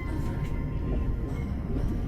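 Background music with a steady low rumble underneath.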